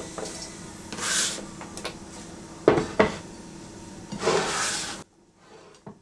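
A plastic scraper sliding across a wooden cutting board, pushing chopped salad vegetables off into a bowl: rasping scrapes about a second in and again later, with two sharp knocks close together near the middle.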